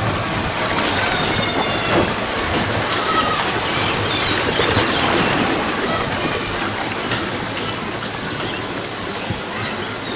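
Water rushing and churning in a log flume channel around a floating log boat, a steady noisy wash.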